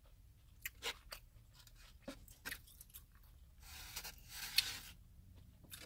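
Plastic fork clicking and scraping against a plastic takeout bowl as food is picked at: a few light, scattered ticks, then a longer soft scrape about four seconds in.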